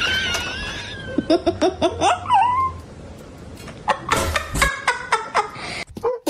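A Boston Terrier vocalizing: a long, wavering high whine, then a run of short yips rising in pitch that ends in an upward squeal, and about four seconds in a quicker string of short yelps.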